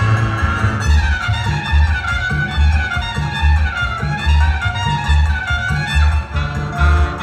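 Big band playing: horn and melody lines over a steady low beat that pulses a little less than once a second.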